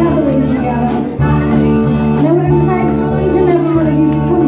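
Live swing band playing: female vocals over electric guitars and drums, with regular cymbal strikes keeping a steady beat.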